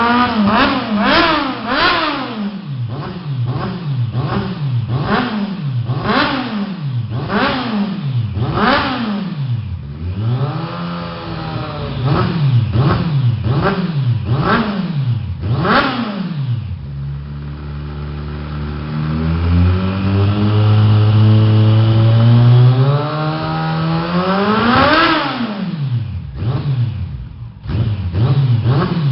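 Kawasaki ZX-14's inline-four engine revved through aftermarket 5-inch stainless steel exhaust tips: a rapid string of short throttle blips, then a steadier raised idle for several seconds, one longer rev a few seconds from the end, and a few more quick blips.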